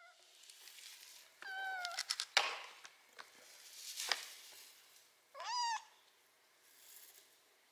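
Ginger kitten meowing twice, about four seconds apart, in high calls; the second rises and then falls. A few sharp clicks and taps fall between the meows, the loudest about two seconds in.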